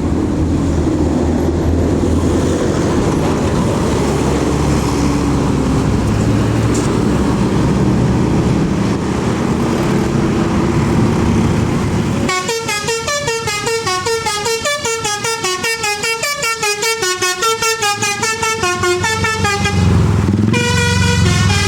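Tour bus engine running with road noise. About twelve seconds in, a telolet multi-tone horn plays a fast tune of short stepping notes for several seconds. Near the end a second horn tune plays over the engine.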